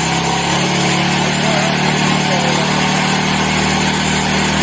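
Okasu 15HP earth auger's engine running steadily at a constant speed.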